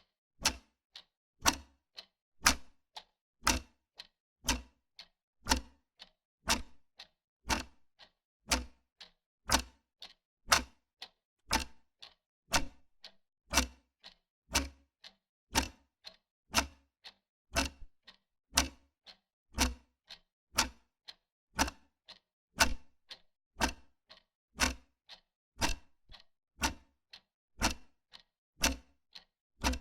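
Wall clock ticking steadily, about two ticks a second, with louder and softer ticks alternating in a tick-tock rhythm.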